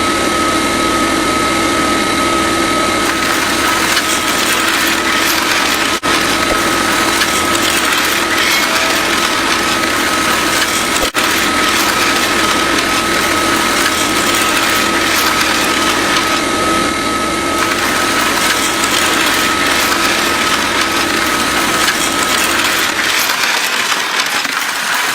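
Small motor of a miniature DIY machine running steadily, with a constant high whine over a dense mechanical noise; it is briefly interrupted twice.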